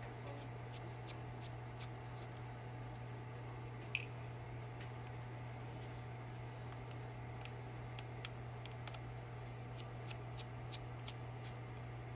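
Small irregular clicks of a precision screwdriver turning a screw out of the bayonet mount of a Nikon DX 18-55mm VR lens, with one sharper click about four seconds in and the clicks coming more often in the second half. A steady low hum runs underneath.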